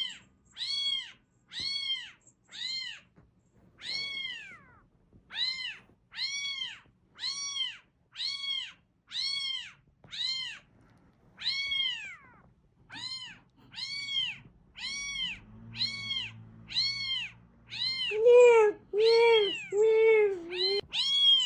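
A recorded high-pitched cat meow played on a loop, the same call repeating a little more than once a second. Near the end a real cat answers with several louder, lower meows.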